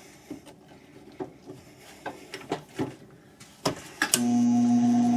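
Scattered clicks and clunks as the metal lathe's drive belt is shifted back to the high-range pulley, then about four seconds in the lathe, driven by a treadmill motor, starts and runs with a steady hum.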